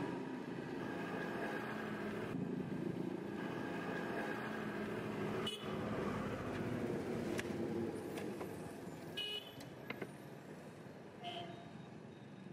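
Street ambience: a steady hum of road traffic, with a few brief horn toots in the last few seconds.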